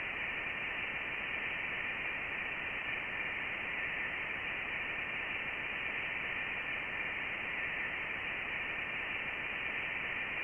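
Voyager 1's plasma wave data played back as sound: a steady hiss of static with faint thin tones in its upper band. These are vibrations of the ionized gas around the probe, taken as the sign that it has reached interstellar space.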